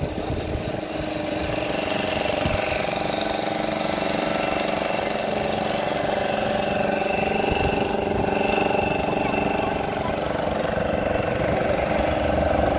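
Small fishing boats' engines running steadily as the boats pass under the bridge, a continuous engine drone with a held hum.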